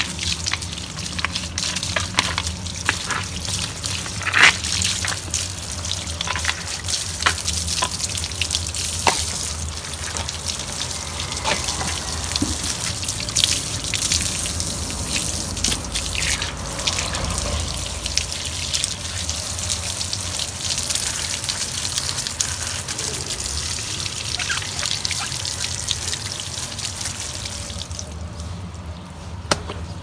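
Water running and splashing, with many scattered knocks and clinks; the running water stops about two seconds before the end.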